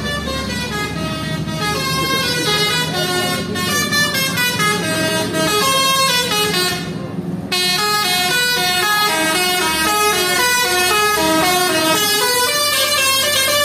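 A bus's telolet horn, a multi-tone musical horn, plays a quick tune of stepped notes over the bus's engine running. The tune breaks off briefly about halfway through, then starts again.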